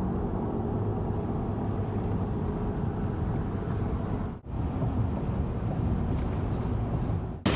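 A car driving, with a steady low engine and road drone. The sound drops out sharply once, about four and a half seconds in, then carries on the same.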